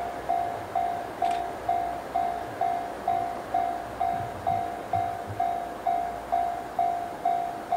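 Railway level-crossing warning bell ringing in a steady rhythm, about two strikes a second, each strike dying away before the next, over a faint low rumble of the approaching train.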